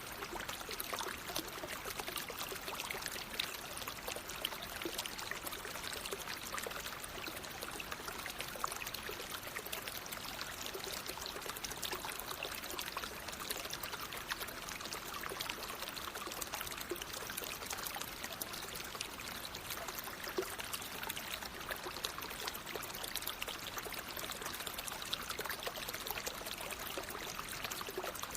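Water flowing in a natural stream, a steady rush that does not let up.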